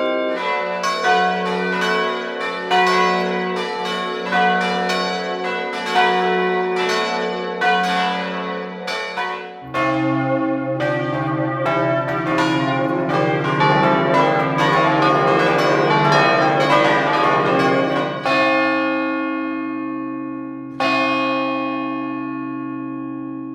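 Church bells rung in a quick succession of overlapping strikes. About ten seconds in it changes to a deeper set of bells. Near the end, two single strikes of a deep bell are left to ring on and fade.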